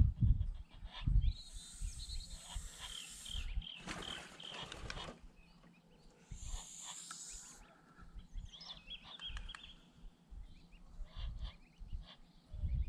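A flock of greylag geese and their goslings calling: runs of short high peeps come twice, with irregular low rumbling underneath.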